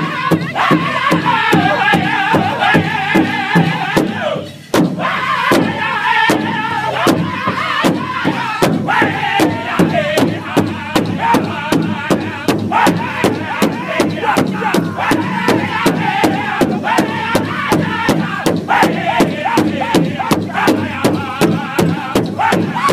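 Powwow drum group singing in high, strained voices over a steady, even beat of several sticks striking one large shared drum. Drum and voices break off for a moment about four and a half seconds in, then pick up again.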